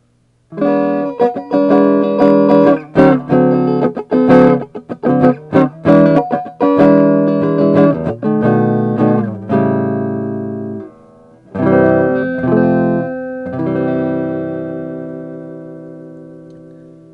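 Electric guitar on its neck pickup with the tone knob rolled all the way down, played through a Bugera 5-watt tube amp: a run of picked notes and chords, a short break about two-thirds of the way in, then a last chord left to ring and fade.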